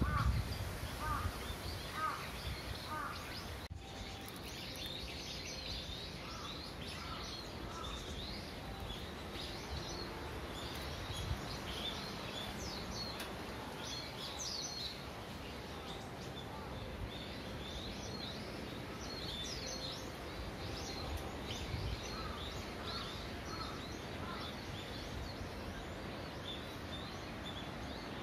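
Birds calling in woodland: a run of repeated mid-pitched calls in the first few seconds and again near the end, with short high chirps from smaller birds throughout, over steady outdoor background noise.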